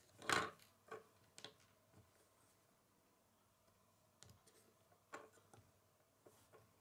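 Small plastic Lego pieces being handled and snapped together by hand: a louder clatter about a quarter second in, then scattered light clicks.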